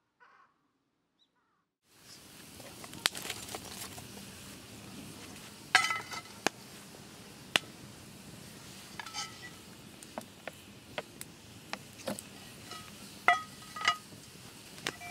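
Near silence for about two seconds, then a wood campfire crackling, with sharp scattered pops, under a steel frying pan. Birds call a few times in the background.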